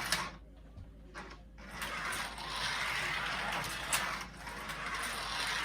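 1:43 scale slot cars running on a plastic track, their small electric motors and gears whirring. The whir fades for about a second near the start, then comes back louder.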